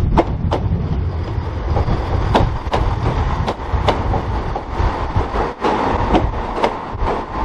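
Class 170 Turbostar diesel multiple unit running past, its wheels clicking over the rail joints two or three times a second over a steady rumble and hum.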